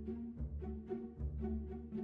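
Background music: sustained string notes over a low, pulsing bass line.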